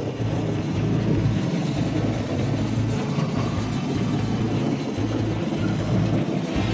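Electric train running along the line, heard from inside the front car: a steady rumble of wheels on rail with a low motor hum.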